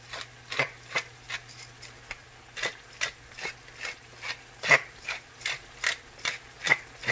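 Pepper grinder being twisted to grind black pepper, a run of short, even grinding clicks at about two or three a second.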